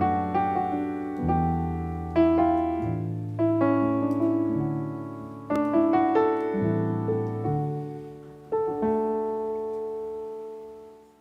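Sampled piano from a Kontakt library, played from a MIDI keyboard: a slow succession of chords with bass notes, each struck and left to ring. The last chord is held and fades away near the end.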